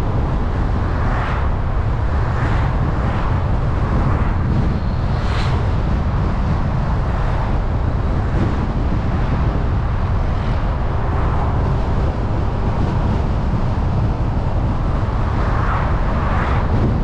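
Car driving on a road: a steady low rumble of road and wind noise, with a few short swells near the start and again near the end.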